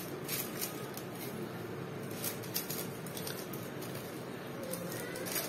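Butter paper rustling and crinkling in short, scattered crackles as hands press it into a cake pan, over steady background room noise.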